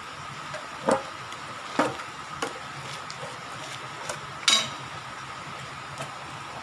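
Screwdriver prying the metal lid off a gallon paint can: several sharp metallic clicks and pops as the rim gives, the loudest about four and a half seconds in.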